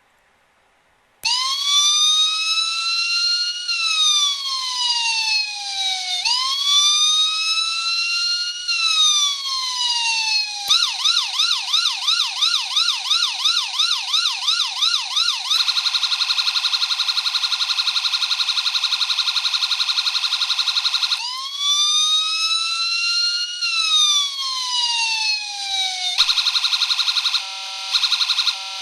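Electronic four-tone police siren module playing through a small speaker in a 1/24 scale police car model. It switches on about a second in with a slow rising-and-falling wail, changes to a fast yelp, then to a steady buzzing tone, then returns to the wail. Near the end it breaks into a choppy pattern and goes back to the yelp, all thin and without bass.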